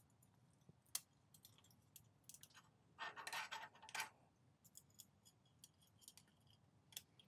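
Faint metallic clicks and a brief scrape about three seconds in, from a steel rule and feeler gauge handled against a metal hand plane's sole while checking the sole for flatness.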